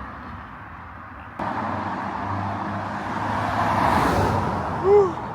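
A car passing on the road: tyre and engine noise that comes in suddenly, swells to its loudest and fades away. Near the end, a short rising-and-falling vocal sound, like a brief hum.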